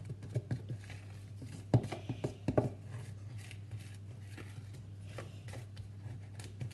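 Wooden spoon knocking and scraping irregularly against a mixing bowl as thick cake batter is beaten, working the last of the flour in. A steady low hum runs underneath.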